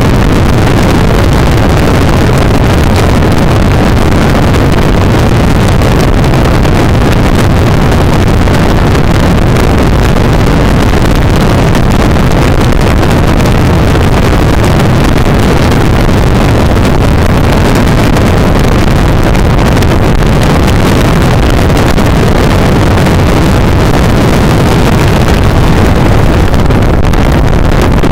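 Motorcycle riding steadily at highway speed: loud, constant wind rushing over the microphone, with the engine droning underneath.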